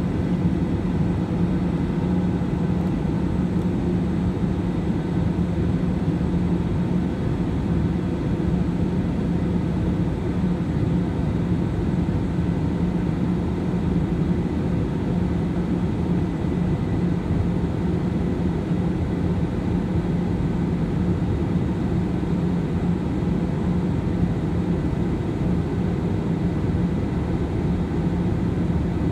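Jet airliner's turbofan engines and rushing air heard from inside the cabin in flight: a steady drone with a constant low hum running through it.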